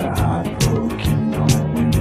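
Instrumental passage of a disco-funk song: drums keeping a steady beat of about four strikes a second over a bass line.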